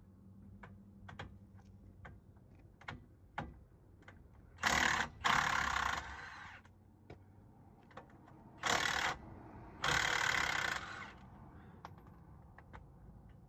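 Light clicks and knocks of hand tools on the wheel hub assembly, broken by four short bursts of a power tool, each under a second long, in two pairs about four seconds apart.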